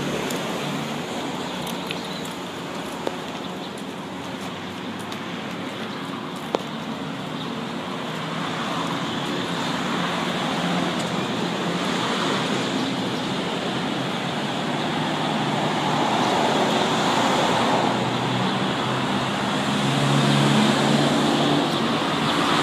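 Steady street traffic noise, swelling louder in the second half as vehicles pass, with a couple of brief sharp clicks in the first few seconds.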